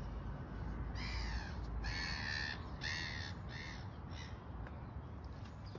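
A crow cawing five times, about a second apart, the last calls shorter and fainter, over a steady low outdoor rumble.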